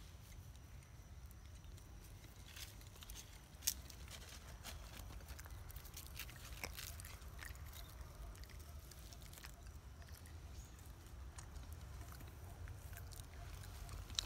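Faint scattered clicks and rustles of a macaque moving and handling things close to the microphone, over a low steady rumble; one sharper click stands out a few seconds in.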